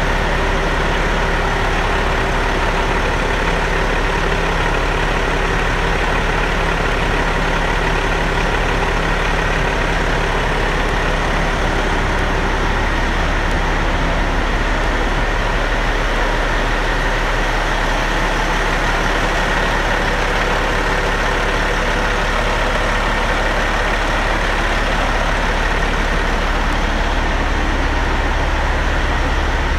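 2007 Caterpillar C15 inline-six diesel engine idling steadily.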